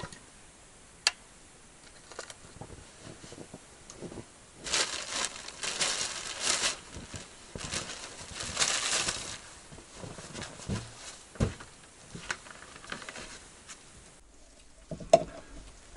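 Rustling and crinkling of handled material with scattered light knocks and clicks, and one sharp click about a second in.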